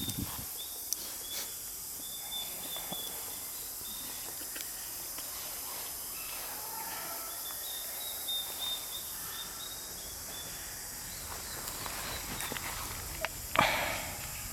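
Outdoor natural ambience: a steady high hiss of insects with a thin, high chirp repeating in short pieces, and one brief louder sound about a second before the end.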